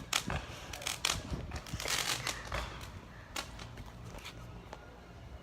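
Fireworks going off: a quick run of sharp bangs and crackles, thinning out and getting quieter after about three seconds.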